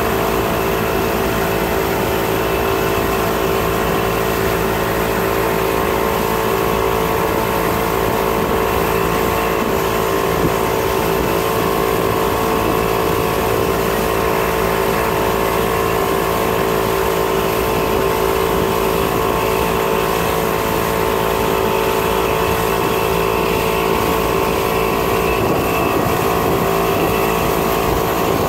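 Mercury outboard motor running at a steady, unchanging speed, pushing the boat along, with a constant rush of wind and churning wake.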